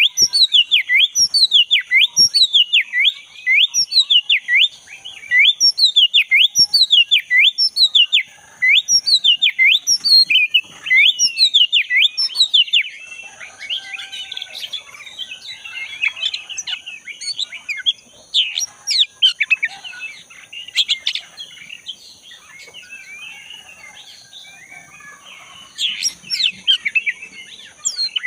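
Oriental magpie-robin (black-breasted kacer) singing in full voice: a fast run of repeated sweeping whistles, about two a second, then, about halfway through, a quieter, looser warble of varied notes. A steady high-pitched whine sits behind the second half.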